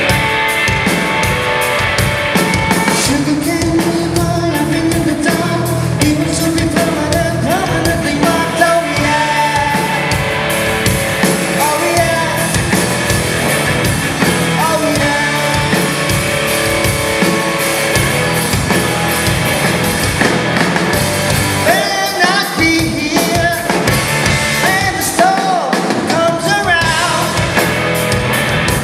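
Live rock band playing: distorted electric guitars, bass and drum kit, with a male lead vocal singing over them.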